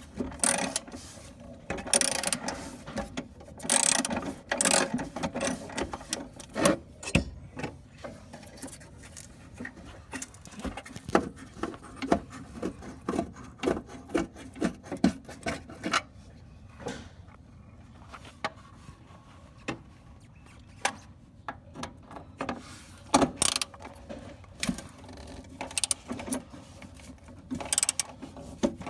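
Socket ratchet wrench clicking in short runs as fasteners are turned, with rubbing and scraping of tools and parts between. The clicking is busiest at the start and again near the end.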